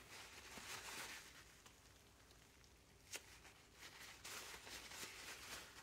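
Faint rustling of a paper towel rubbed along an oiled steel chisel blade to wipe off its protective oil, with one small click about three seconds in.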